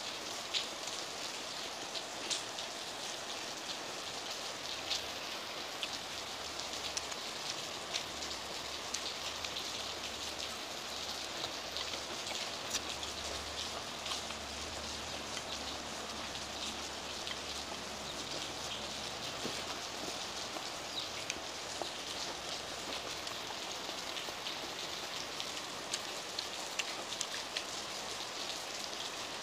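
Heavy rain falling steadily, an even hiss with scattered sharp taps of drops.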